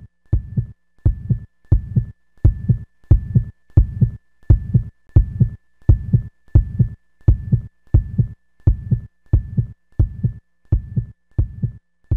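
Heartbeat-style sound effect: low double thumps repeating evenly at about one and a half beats a second, with a faint steady high tone beneath.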